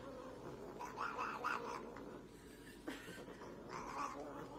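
Grey tabby cat meowing in short calls: a quick run of them about a second in and another near the end.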